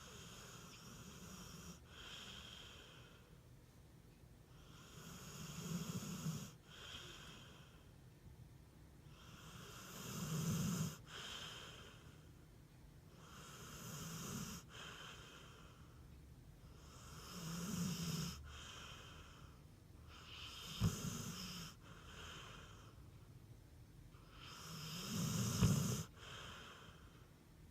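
A pit bull snoring in REM sleep, slow and regular, with a raspy, wheezy snore about every four seconds.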